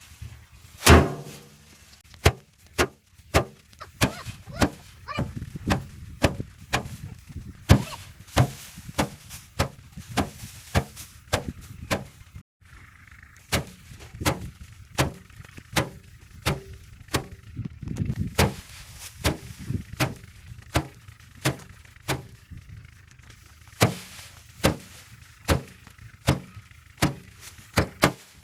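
Bundles of harvested rice paddy being beaten by hand against a drum to thresh out the grain: a steady run of thwacks, about one to two a second, with a brief break partway through.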